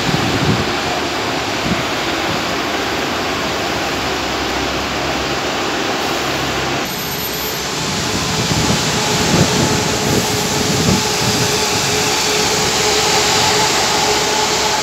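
Red London double-decker buses running in a bus station. From about seven seconds in, a nearby bus's engine runs close by with a steady whine as the bus moves off.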